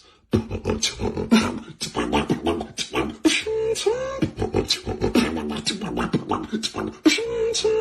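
Human beatboxing: a fast run of mouth-made kick, snare and hi-hat sounds, with a held, wavering hummed bass tone woven in midway and again near the end.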